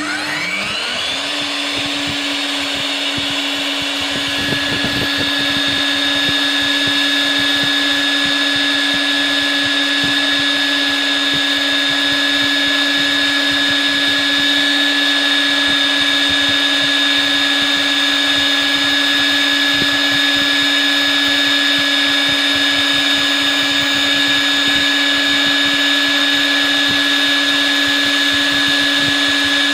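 Powerbor PB100E FRV magnetic drill's 1700 W motor spinning up with a rising whine, then running steadily as its annular cutter bores dry, without coolant, into steel plate. A few seconds in, the cut takes hold and the sound gets slightly louder, with a light chatter under the steady whine.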